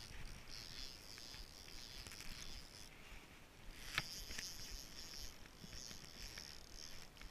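Spinning reel being worked on a fishing rod: a faint hissing whir in stretches, with one sharp click about four seconds in.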